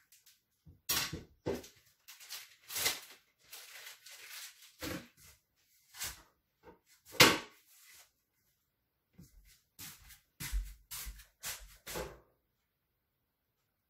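Kitchen clatter: irregular knocks and clunks of things being handled and set down. The loudest knock comes about seven seconds in, and a quick run of knocks with low thuds follows near the end.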